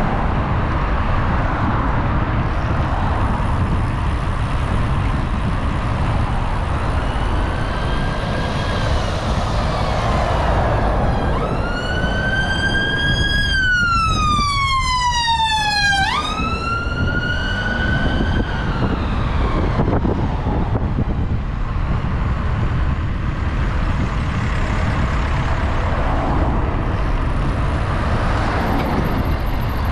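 Steady wind rush and road noise while riding through traffic. Around the middle a siren wails over it, rising slowly and then falling steeply, then rising again.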